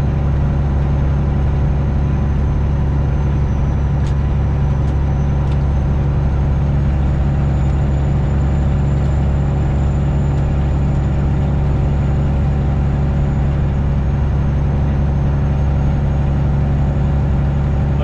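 Diesel engine of a Freightliner Classic XL semi-truck, a Detroit Diesel 12.7, heard from inside the cab as a steady low drone that holds even throughout.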